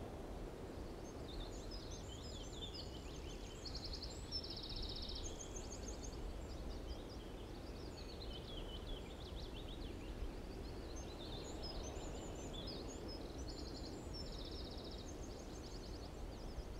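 Birds chirping and whistling, with a few short rapid trills, over a steady low background rumble of outdoor ambience.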